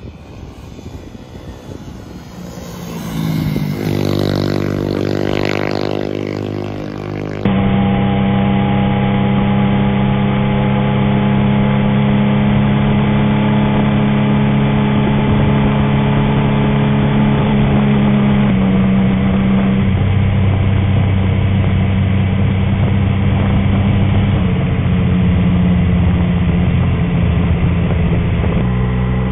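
Motorcycle engine revving up in rising pitch, then a cut to a bike-mounted dashcam recording of a motorcycle engine running at a steady cruising pitch with wind and road noise. The engine pitch changes a few times in the second half.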